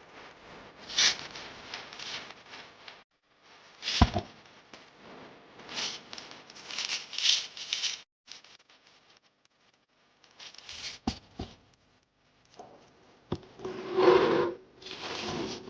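Handling noises: sharp clicks and knocks among rubbing and scraping, broken by a few abrupt silences.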